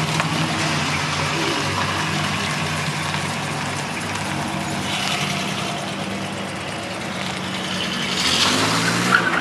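Motor vehicle engine running steadily, with road or yard noise over it and a louder burst of noise near the end.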